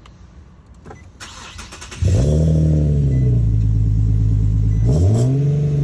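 Car engine starting about two seconds in, flaring up and settling to a steady idle through an exhaust fitted with an added second resonator, then a short rev that rises and falls back near the end. The owner says he still hears the same rasp and drone he wanted the resonator to remove.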